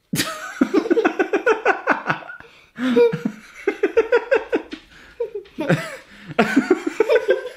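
A man and a young girl laughing hard together, in three long runs of quick pulses with short breaths between them.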